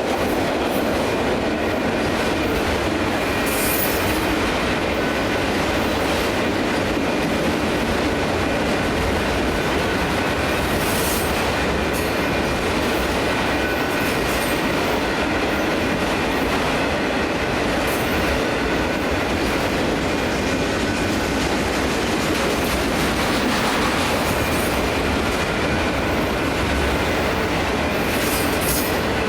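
Autorack freight cars rolling past at a grade crossing: a steady rumble of the train with wheel clicks over the rail joints and a thin, steady squeal from the wheels.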